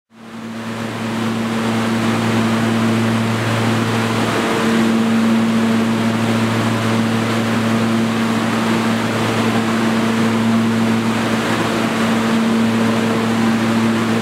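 NYC subway R train standing at a station platform, giving a steady hum with several fixed tones over a constant hiss of station noise, fading in over the first second.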